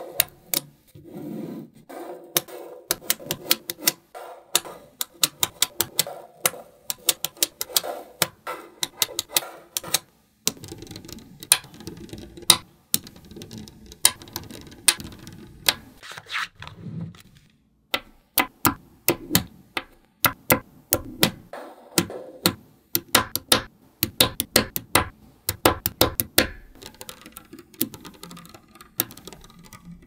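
Small neodymium magnetic balls clicking and snapping together as they are set into place, an irregular run of sharp clicks, several a second at times, over a soft rustle of handling, with a few brief silent breaks.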